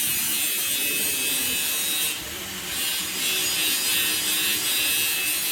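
Steady, high-pitched grinding hiss of a power tool running in a car repair shop, dipping briefly about two seconds in.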